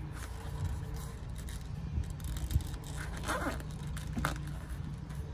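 Old plastic coolant expansion tank being handled and worked free of its rubber hoses: a sharp knock about halfway through and a couple of short squeaks just after, over a steady low hum.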